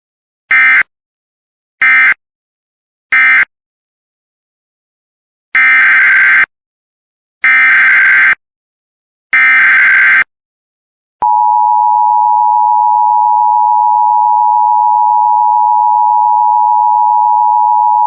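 Emergency Alert System broadcast tones. First come three short SAME end-of-message data bursts, then three longer SAME header bursts that encode the next alert, a fire warning. About eleven seconds in, the steady two-tone EAS attention signal starts and holds.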